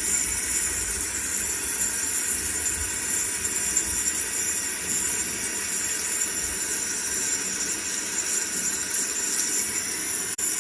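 Rain sound effect: a steady, even hiss of rain with a faint low rumble beneath it. It briefly drops out near the end.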